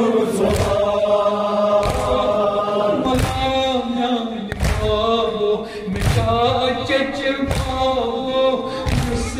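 A Kashmiri noha (mourning lament) chanted by a lead male voice with a group of men joining in unison. A regular thump about every second and a half, from hands beating on chests (matam), keeps time with the chant.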